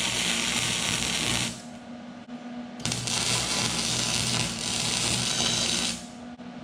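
Wire-feed (MIG) welder laying down welds in two bursts, a steady crackling hiss over an electrical hum. It stops about a second and a half in, restarts about a second later, and runs for about three seconds more.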